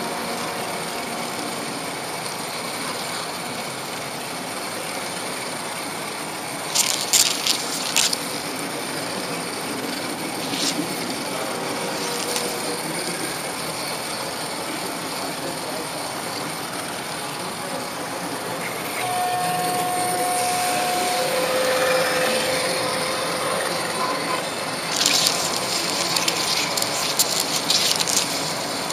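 Model train running along its track with a steady rolling noise, broken twice by bursts of sharp clicking: about seven seconds in, and again for a few seconds near the end.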